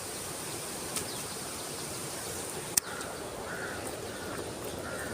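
Steady outdoor hiss of flowing stream water under a faint steady high hum. A sharp click comes just under three seconds in, with a fainter one about a second in.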